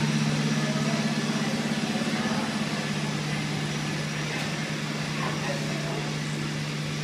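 A steady low drone on two held pitches, a little louder for the first couple of seconds, under a faint murmur of voices.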